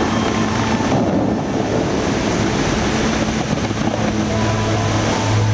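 Bellagio fountain's water jets rushing and splashing as they shoot up and fall back into the lake, with a steady low hum underneath that grows louder near the end.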